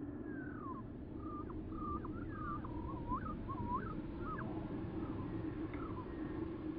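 A bird singing: a quick run of short notes that slide and hook up and down in pitch over about four seconds, then a couple of faint notes near the end, over a steady low hum.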